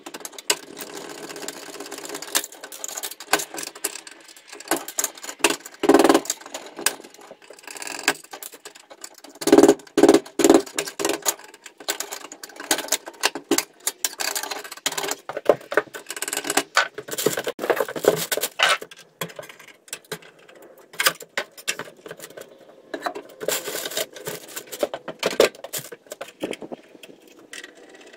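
Hand tools working the sheet-metal knockouts out of a solar charge controller's wiring compartment: irregular metallic clicks, taps and clinks, with louder knocks about six and ten seconds in.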